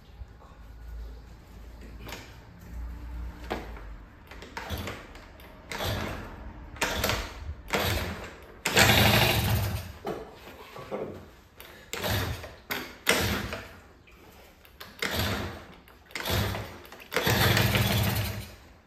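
Honda Dio AF34 two-stroke 50cc moped engine being cranked over again and again in short bursts about a second apart, with two longer, louder runs about nine and seventeen seconds in. These are starting attempts after the carburettor's main and slow jets were cleaned of stale, discoloured fuel.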